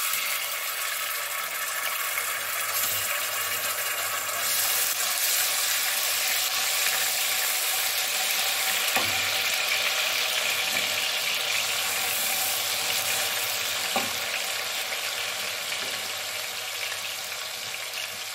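Ginger-garlic paste frying in hot oil in an aluminium pot: a steady, loud sizzle that starts abruptly as the paste goes in and fades slightly toward the end. A couple of light knocks are heard partway through.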